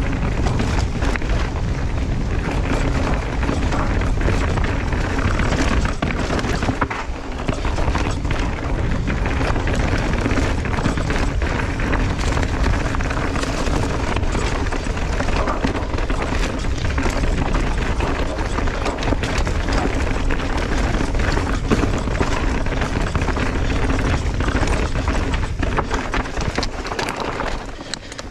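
Mountain bike riding fast down a dirt trail, heard from an action camera: heavy wind rumble on the microphone with tyre noise and constant rattling and knocks from the bike over roots and rocks.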